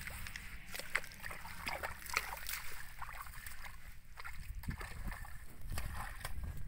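Footsteps through dry rice stubble and wet mud: irregular crackling of straw with soft squelches, over a steady low rumble.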